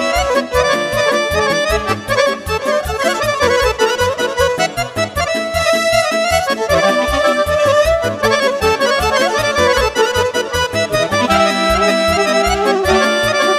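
Roland digital accordion playing an instrumental break of Romanian party music (muzică de petrecere), over a keyboard backing with a steady beat.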